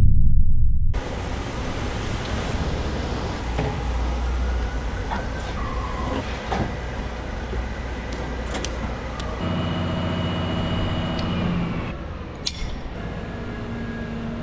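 Crane truck's engine running steadily, after a loud low rumble in the first second. A deeper pitched engine tone rises out of it for a couple of seconds past the middle.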